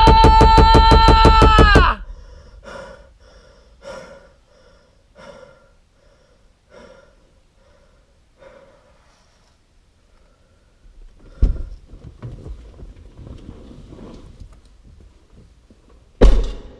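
The closing of a pop/dance track: a loud, held synthesizer note that cuts off about two seconds in, then faint echoes of it repeating about once a second and fading away. Later comes a low thump with faint noise after it, and a short loud hit just before the end.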